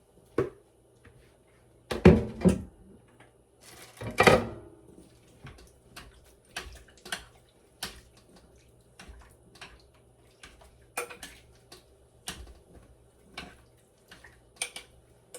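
Kitchen clatter: a string of knocks and clinks from pots, dishes and utensils being handled, with the loudest knocks about two and four seconds in and lighter taps through the rest.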